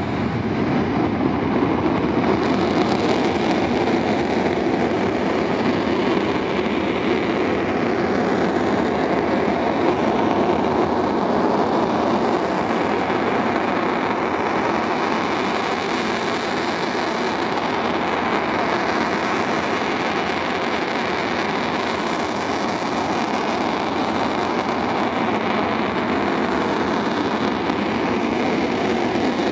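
The twin RB199 turbofans of an RAF Tornado GR4 running at steady power on the runway. The jet noise is loud and even, building over the first couple of seconds and then holding level.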